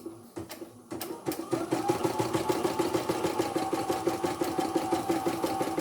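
CNY portable computerized embroidery machine starting to stitch: a few clicks, then about a second in its motor spins up with a rising whine into a steady, rapid, even clatter of the needle mechanism. It runs smoothly.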